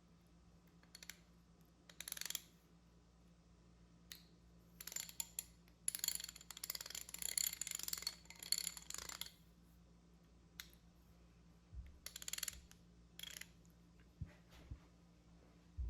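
Vintage Montgomery Ward Wardmaster 1/2-inch ratchet, freshly cleaned and reassembled, worked in short bursts with its pawl clicking rapidly over the gear. The longest run of clicking comes in the middle, about six to nine seconds in.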